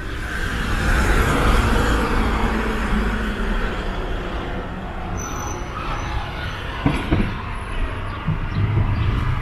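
Street traffic: a motor vehicle passes close by, loudest about a second in, over a steady low rumble of engines and tyres. A brief high squeal comes about five seconds in and a sharp knock about seven seconds in.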